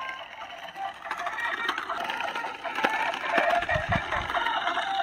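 Remote-control toy school bus driving on asphalt, its small electric drive motor whirring while its built-in speaker plays tinny electronic tunes and sound effects that cannot be switched off. A brief low rumble comes near four seconds in.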